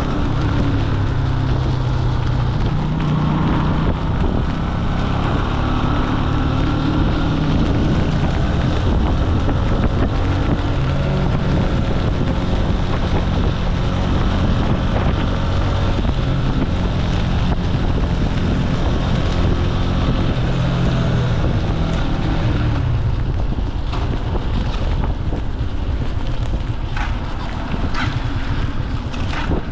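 Jialing 150 cc single-cylinder four-stroke motorcycle engine running under way, its pitch wandering with the throttle, with wind rushing over the microphone. About 23 seconds in the engine note drops away as the bike slows, and a few sharp clicks follow.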